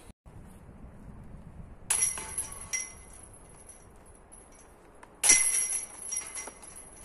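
Disc golf basket chains jangling twice, about three seconds apart, as discs strike them; each metallic rattle rings and dies away within a second or so.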